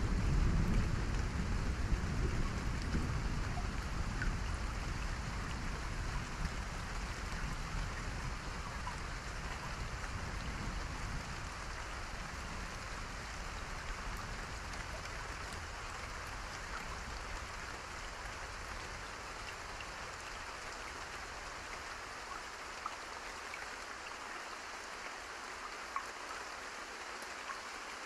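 Steady rainfall with scattered drops ticking on a surface. A deep rumble at the start dies away over the first ten seconds or so.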